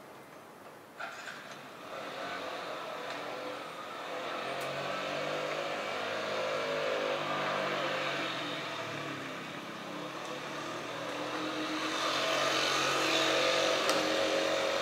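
A motor vehicle's engine running, its pitch slowly drifting up and down. It fades in about two seconds in, dips briefly, and is loudest near the end. A short click comes about a second in.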